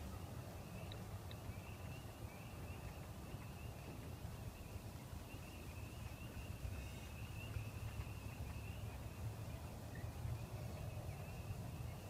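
A distant chorus of frogs calling together, heard as a steady high-pitched wavering peeping, over a low rumble.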